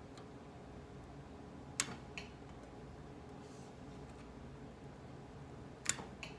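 Two sharp small clicks about four seconds apart, each followed by a fainter one, over a low steady hum: tools and the quick connect being handled.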